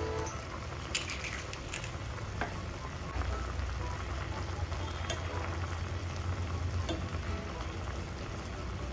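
Instant noodles boiling in spicy broth in an aluminium saucepan, a steady bubbling hiss, with a few light clicks in the first couple of seconds and chopsticks stirring through the noodles.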